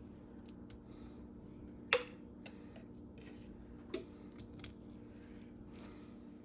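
Light clicks of a spoon against a jar as two tablespoons of garlic are measured out: two clearer clicks about two seconds apart and a few fainter ticks, over a faint steady hum.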